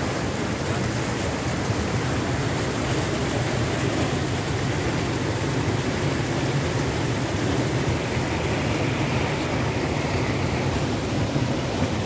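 River water rushing over rocks in a fast, high flow: a steady, full rushing noise.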